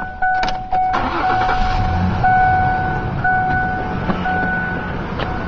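A 2000 Ford Ranger's 3.0 V6 is cranked and catches about a second in, then idles steadily with no squeal: the newly replaced upper idler pulley and bolt have cured the metal-on-metal squeal. A steady warning chime beeps repeatedly throughout.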